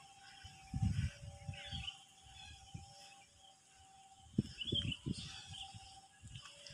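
Quiet rural trackside ambience: birds chirping, a faint steady two-note tone that alternates back and forth, and irregular low rumbling gusts against the microphone, strongest about a second in and again near the middle.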